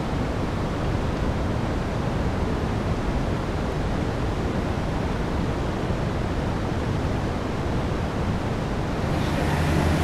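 Steady roar of rushing water from the Niagara River's falls and rapids, an even unbroken noise. A low steady hum joins near the end.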